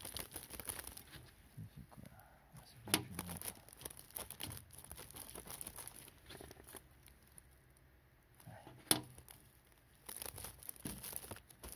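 Clear plastic wrapping around a coil of copper brake line crinkling as it is handled, with two sharp clicks, about three seconds and nine seconds in.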